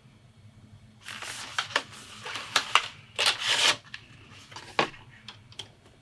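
Packaging rustling and crinkling in several short bursts as the mask mirror is taken out of its box.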